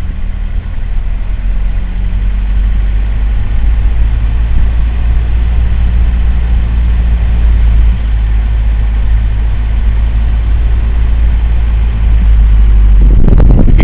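Car engine running as the car is driven down the road to turn around: a steady low rumble that grows louder over the first couple of seconds.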